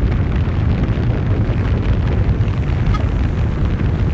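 A steady, loud low rumble with no distinct impacts or changes.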